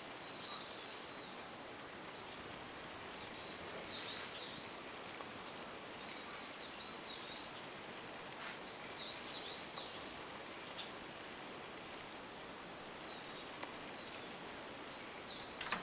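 Small birds chirping: short, high calls that come every few seconds, the loudest about four seconds in and near the end, over a steady background hiss.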